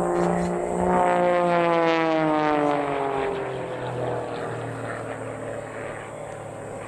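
Aerobatic propeller biplane's engine and propeller passing by. The pitch drops steadily over a couple of seconds and the sound then fades away.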